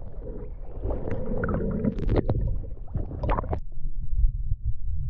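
Muffled water noise heard through a submerged camera: gurgling and bubbling with several sharp clicks for the first three and a half seconds, then only a low rumble.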